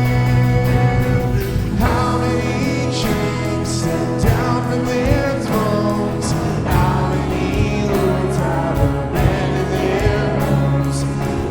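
Worship band music with voices singing over sustained chords and drum hits.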